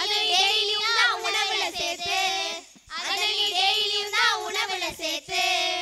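A group of girls singing a Tamil song together into microphones, in two sung phrases with a short break just under three seconds in.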